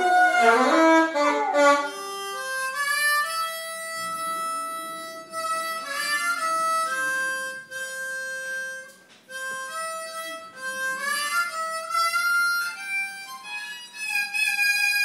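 Harmonica playing long held notes and chords, with sliding pitches about a second in.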